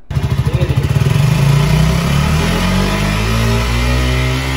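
KTM Duke 200's single-cylinder engine running through its underbelly exhaust, the revs climbing slowly so the exhaust note rises steadily in pitch.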